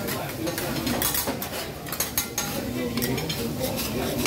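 Metal teppanyaki spatulas clinking and scraping on the griddle and plates in quick, irregular strokes.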